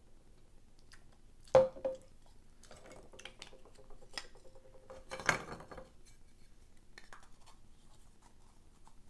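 Hard toy parts being handled and knocked together: a sharp clack about one and a half seconds in that leaves a short ringing tone, scattered small clicks, and a second knock about five seconds in.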